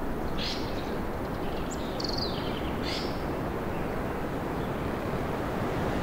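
Steady wind through forest trees, with a few short high bird calls in the first half, including a quick falling series of notes about two seconds in.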